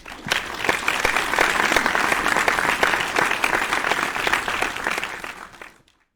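Audience applause: many hands clapping in a dense, steady patter that fades in and fades out after about six seconds.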